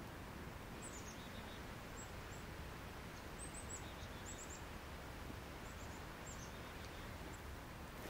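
Faint high chirps from small birds, short falling notes in little clusters of two to four, over a steady background hiss.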